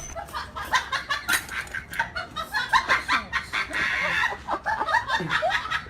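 A dense run of short, chirping animal calls, several to a second.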